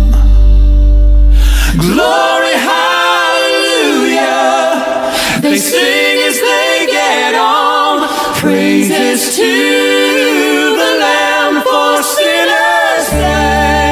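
Gospel a cappella vocal break: a held band chord with heavy bass cuts off about two seconds in, leaving several unaccompanied voices singing in harmony with sliding runs. The bass and band come back in near the end.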